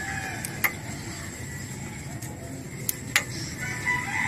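A few short, sharp clicks and light taps from hands handling motorcycle wiring and a plastic wire connector.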